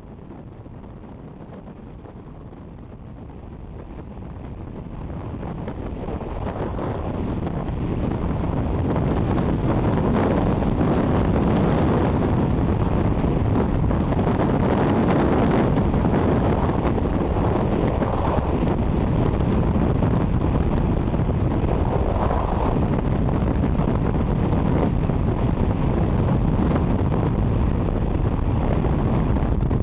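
Freefall wind rushing over a helmet-mounted action camera's microphone, a dense roar that builds over the first several seconds and then holds steady as the skydivers fall.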